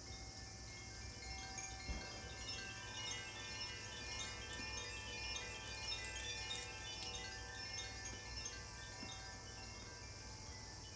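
Makino-style healing chimes being rung: a shimmering cluster of many overlapping ringing tones, densest in the middle and thinning out toward the end.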